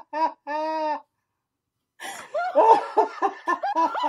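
People laughing hard in short rhythmic bursts, with one longer held cry in the first second. The sound cuts out completely for about a second, then the laughter starts again.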